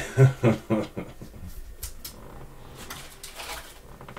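Thin plastic penny sleeve crinkling and rustling as a trading card is slid into it. Near the start there are three short, louder low vocal sounds.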